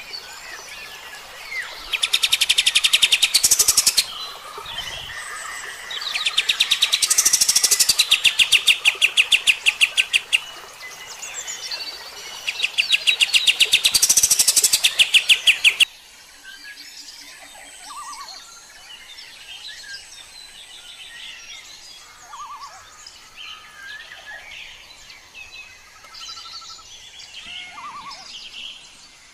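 Kapas tembak (olive-winged bulbul) singing its rapid runs of repeated sharp notes in three loud bursts. About halfway through, the sound cuts abruptly to a quieter passage of scattered chirps and short falling whistles.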